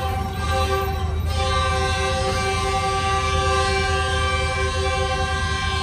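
Train whistle sounding one long, steady, multi-toned blast over the low rumble of the train: the signal of an emergency brake application bringing the train to a stop.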